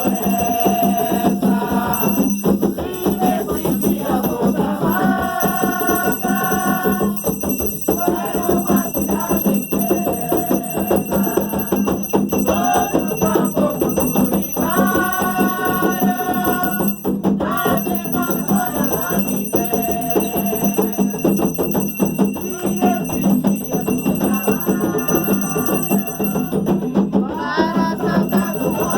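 A group of voices singing an Umbanda ritual chant (ponto) in long held phrases, over continuous hand percussion with shaken rattles.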